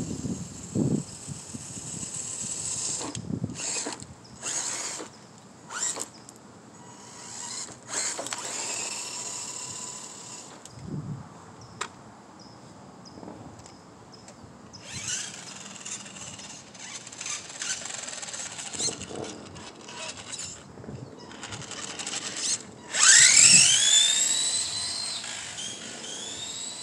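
Electric motors of radio-controlled cars whining in repeated bursts of throttle. The loudest is a whine that rises sharply in pitch about 23 seconds in, as a car speeds up.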